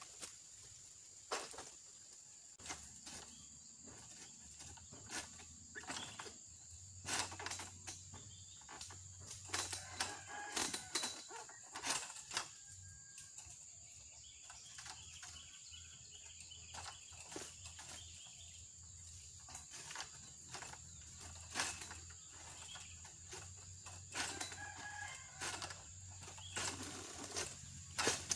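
Oil palm harvesting sickle (egrek) on a long pole working high in a palm's crown: a scattered series of sharp cracks, knocks and rustles as it cuts and drags through the fronds, busiest in the middle. A few short animal calls come in between.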